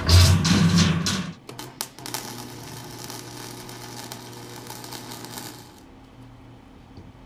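A large 11-gauge mild steel sheet flopping down with a loud, rumbling clatter. About two seconds in, a Lincoln flux-core wire-feed welder's arc crackles steadily for about four seconds while tack-welding steel sheet, then stops.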